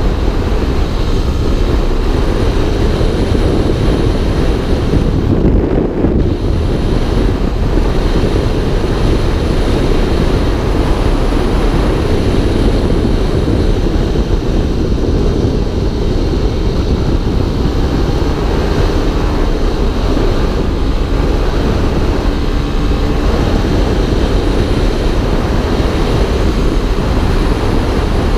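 Motorcycle riding at road speed: the engine running steadily under heavy wind rush on the microphone.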